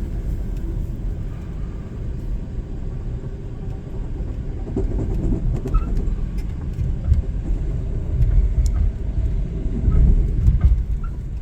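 Steady low rumble of the Amtrak Auto Train running on the rails, heard from inside the passenger car. It swells a little about eight to ten seconds in, with a few faint clicks.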